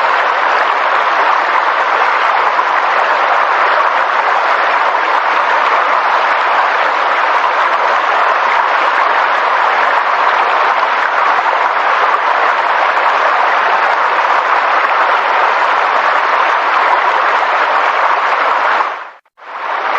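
Steady, even rushing noise with no distinct events. It dips to near silence for a moment about a second before the end, then resumes at once, as at a loop point.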